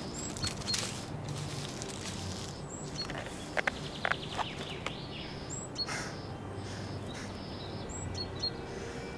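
Forest ambience: small birds chirping now and then over a steady background hiss and low hum, with a few brief rustles about halfway through.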